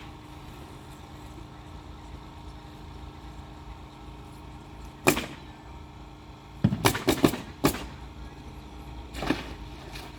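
Hammer blows from roof repair work, the "thak thak" knocks coming irregularly: one about five seconds in, a quick run of four or five around seven seconds, and another near nine seconds, over a steady low rumble.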